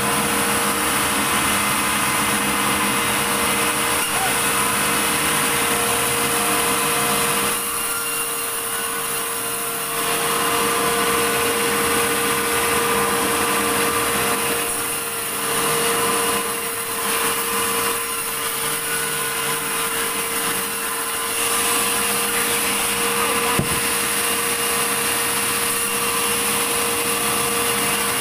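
Sawmill saw running steadily while cutting through a large medang log, with a constant whine and a hiss of cutting. It eases off briefly twice, about eight seconds in and again in the middle, and there is one sharp click near the end.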